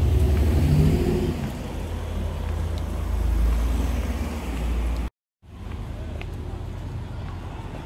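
City street traffic: cars on the road with a heavy low rumble. The sound cuts out abruptly about five seconds in and comes back as quieter street noise.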